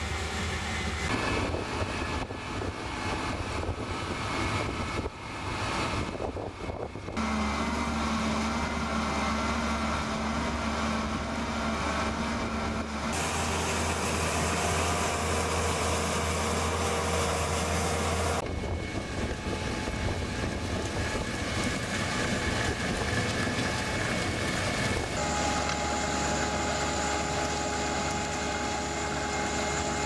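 PMC self-propelled pea viners running while harvesting: a steady machine drone with a hum of engine tones. The sound changes suddenly several times, as the shots change.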